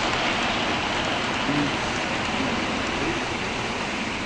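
00 gauge model train of coaches rolling past on the track, a steady rushing rattle of metal wheels on rails that eases off slightly near the end.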